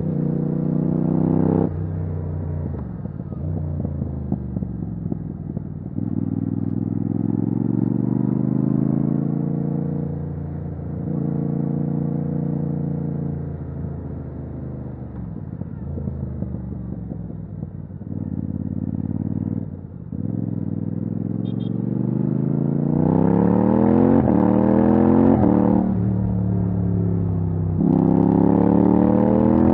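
Yamaha MT-07's 689 cc parallel-twin engine through an open titanium Akrapovic exhaust with no dB killer, accelerating and easing off over and over, its pitch climbing with the revs and dropping sharply at each gear change. The hardest, fastest-rising acceleration comes in the last third.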